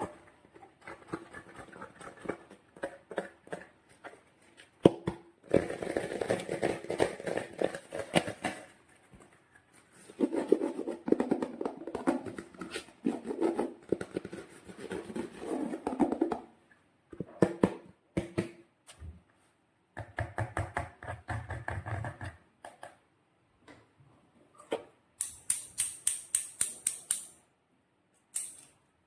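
Slime being squished and worked by hand, making crackling, clicking sounds in several long bursts, with a run of quick, sharp, high clicks near the end.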